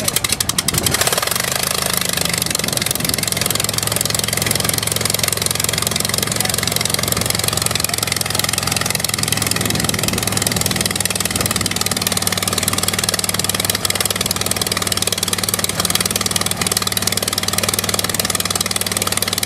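Antique Standard biplane's in-line piston engine catching after the propeller is swung by hand: a ragged patch of firing at first, settling about a second in into a steady idle with the propeller turning.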